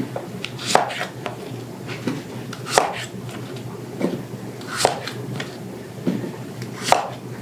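Kitchen knife chopping large seeded zucchini into chunks. Each stroke ends in a sharp knock, the strongest about every two seconds, with lighter cuts between.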